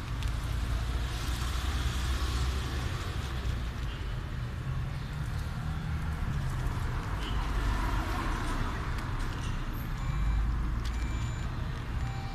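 Steady low rumble of street traffic, with faint scattered clicks over it.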